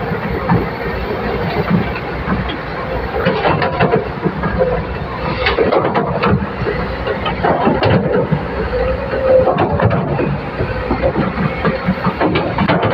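L&T excavator at work: engine running steadily, with irregular metallic clanks and rattles throughout and a wavering whine underneath.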